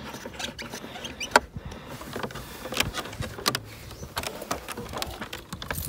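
Irregular small clicks and taps of a satellite coaxial cable's plug being fitted to a caravan's external satellite socket and handled against the plastic service-hatch panel.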